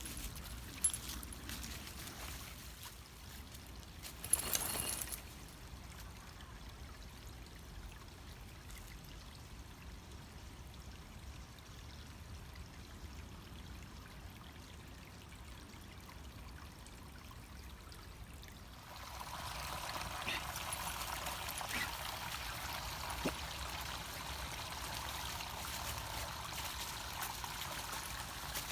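Creek water trickling and splashing, faint at first and then a steady, louder trickle from about two-thirds of the way through. A short rushing noise comes about four seconds in.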